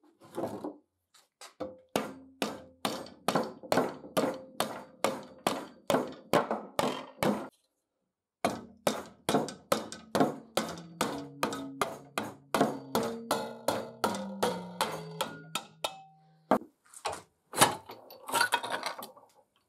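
Rubber mallet striking the spine of an old tenon saw clamped in a cast-iron vise to drive the spine off the blade. It lands in two long runs of steady knocks, about three a second, with a short pause between them and a few harder blows near the end. The metal rings faintly after each knock, and the ringing drops in pitch during the second run.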